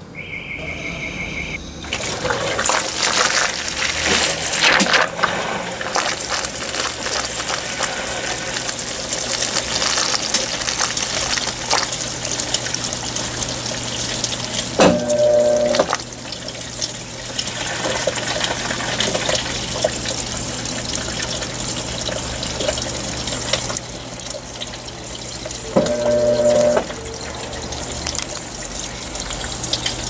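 Consul 16 kg top-load washing machine starting its cycle: a short electronic beep, then water spraying into the tub as it fills, over a steady low hum, with a brief louder hum twice, near the middle and near the end. The fill spray is weak from low household water pressure.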